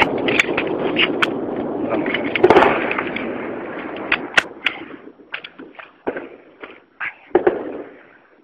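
Gunfire in a firefight: irregular sharp shots, each with a rolling echo. A loud rumble fades over the first few seconds, and after that single shots come at scattered intervals.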